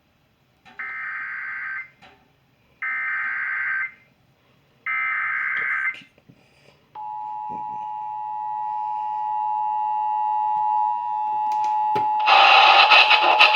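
Emergency Alert System activation tones: three short bursts of the digital SAME data header, each about a second long, then the steady two-tone attention signal, which swells slowly. A louder, wider sound comes in over the tone near the end.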